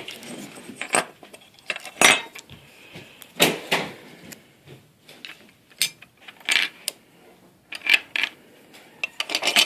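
Irregular clicks and light clatter of a Hot Wheels diecast toy car's small metal and plastic parts being handled and pressed back together.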